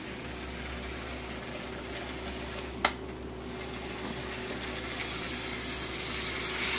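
A Lego Toy Story train, not powered as originally sold but fitted with a 9-volt train motor, running steadily along plastic 9V track. The running noise grows louder in the second half, and there is one sharp click about three seconds in.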